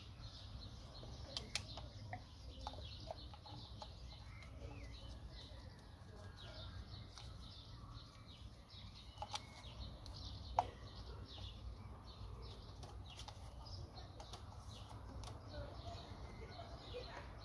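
Faint outdoor ambience: small birds chirping again and again over a low steady hum, with a few sharp clicks as ignition leads and connectors are handled on the engine, the sharpest about ten seconds in.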